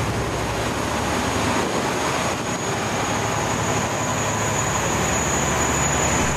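Steady noise of a pilot boat underway in rough sea: an engine drone under rushing water and wind.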